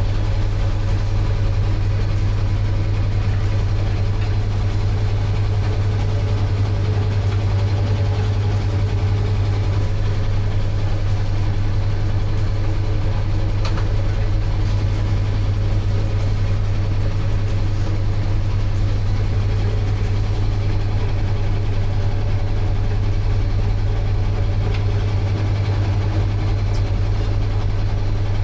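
An engine running steadily at idle, with a constant low hum and no change in speed.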